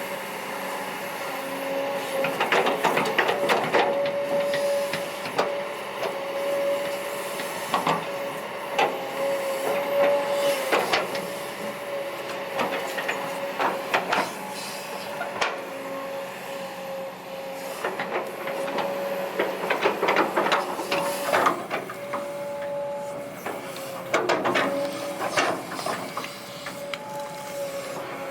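Kobelco SK200-8 hydraulic excavator working, with a steady whine from the machine and repeated bursts of knocking and scraping from the bucket and arm.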